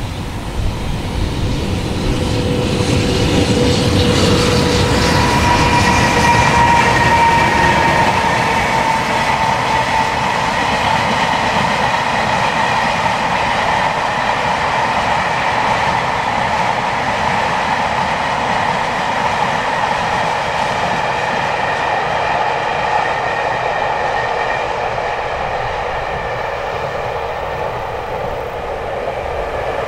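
EH500 electric locomotive passing at the head of a long freight train of Taki 1000 tank wagons, then the wagons rolling steadily by. The sound swells to its loudest several seconds in as the locomotive goes past, carries a steady ringing tone, and slowly fades toward the end.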